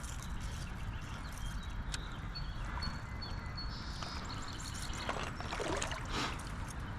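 Steady rush of creek water, with a few brief splashes and sloshes a little past the middle.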